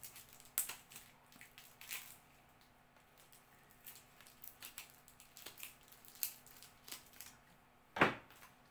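Packing wrap around a plant crinkling and crackling in the hands as it is unwrapped: scattered sharp crackles, with one louder rustle near the end.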